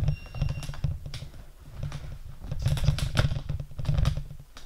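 Close handling noise: rubbing, bumping and clicking as things are moved about right by the microphone, stopping near the end. A brief faint high beep sounds near the start.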